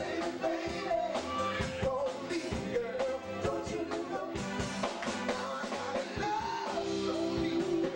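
Live band playing an upbeat song: drum kit and electric guitars, with singers on microphones.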